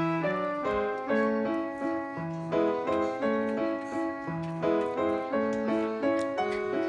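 Background music: a keyboard tune of evenly paced struck notes.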